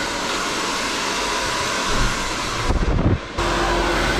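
Handheld hair dryer blowing steadily, styling damp curly hair. About three seconds in it falters briefly with a low rumble, then comes back steady with a faint hum.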